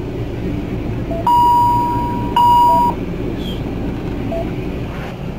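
Philips HeartStart MRx monitor-defibrillator beeping: a long steady high tone about a second in, then a shorter one right after it. Short lower heartbeat beeps sound about every one and a half seconds, about 40 a minute, the slow rate of a patient with bradycardia.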